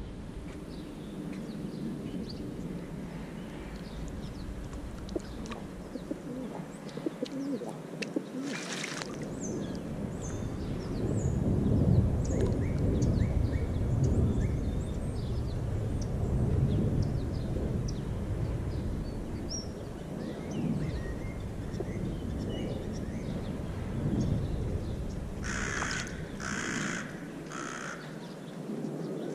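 City park birds chirping all through, with feral pigeons at a rain puddle close by, over a low rumble that swells in the middle. Three short whooshes come near the end.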